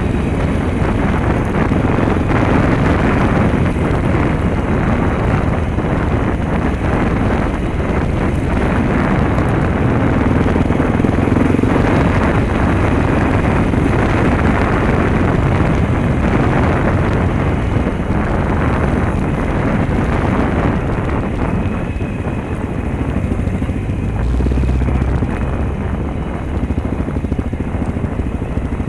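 Dirt bike engine running while riding over a rough dirt track, with wind buffeting the microphone and knocks and rattles from the bumpy ground.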